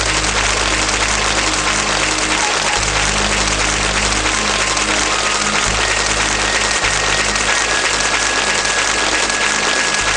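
A crowd applauding steadily, with music playing underneath.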